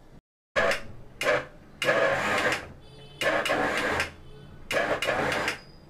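Kitchen mixer-grinder pulsed on and off in short bursts, about six in a row. Each burst is a loud whir of the motor and blades churning cream and chilled water in a steel jar, and pulsing this way churns the cream into butter.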